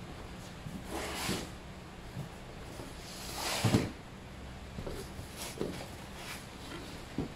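Cardboard shipping boxes being handled and shifted on a concrete floor, in several short rustling scrapes. The loudest comes about three and a half seconds in and ends in a dull thump. Plastic packaging rustles as a hand goes into an open box near the end.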